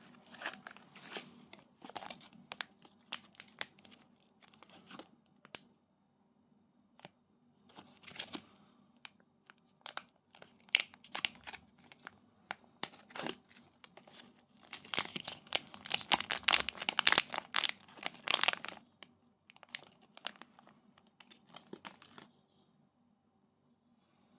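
Plastic snack packaging crinkling and tearing open in the hands, in bursts of sharp crackles that are loudest about two-thirds of the way through and stop shortly before the end.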